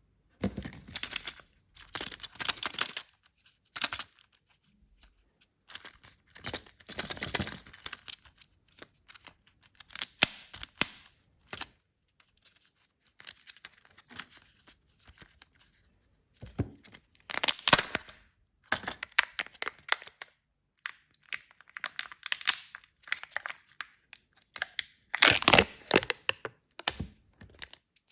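Wrappers of chocolate surprise eggs being torn open and crinkled by hand. The tearing and rustling comes in irregular bursts with sharp clicks and short pauses between them.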